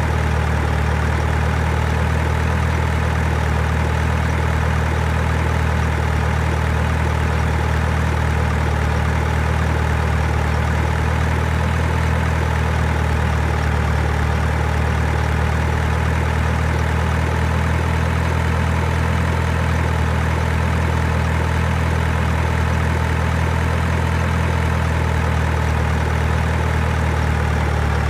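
Heavy truck engine idling sound: a steady, unchanging low hum with no revving.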